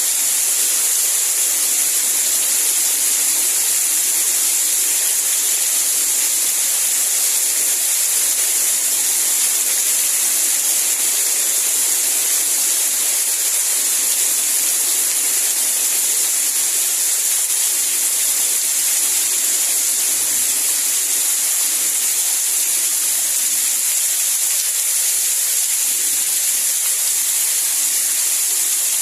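Steady heavy rain: an even, unbroken hiss without separate drops or thunder.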